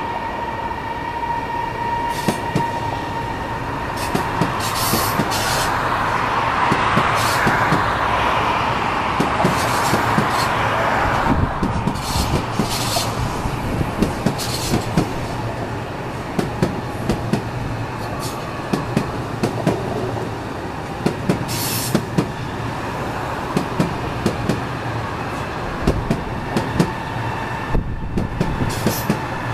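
Double-headed CRH3C high-speed train, two coupled Siemens Velaro-based sets, rolling slowly out of a station: a steady rumble of wheels with many irregular clicks and clacks from the rails. A steady whine opens the sound, and a hiss swells and fades over roughly the first ten seconds.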